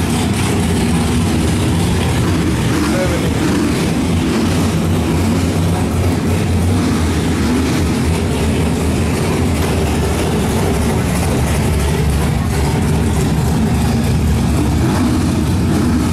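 Engine idling steadily, a constant low rumble that holds the same pitch throughout.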